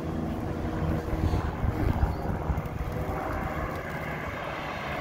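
Steady low rumble of wind on the microphone, with a faint steady hum underneath.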